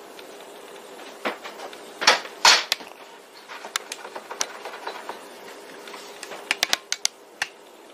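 Glass-fronted picture frame being handled on a tabletop: a few sharp knocks as it is set down, then scattered light clicks and taps as the glass is wiped with a cloth and the frame is turned over.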